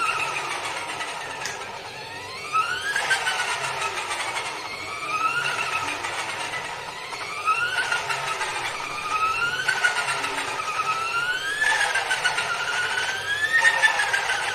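Mini washing machine's spin motor running during the spin cycle, its whine rising and falling in repeated swells about every two seconds.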